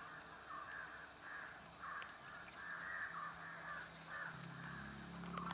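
A crow cawing over and over, faintly, about two caws a second.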